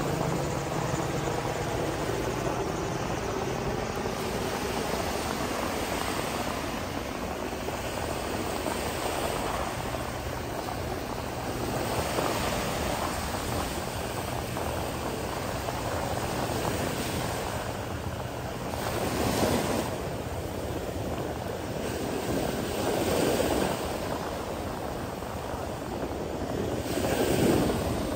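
Ocean surf and wind making a steady wash that swells up several times, with a low steady engine-like hum underneath.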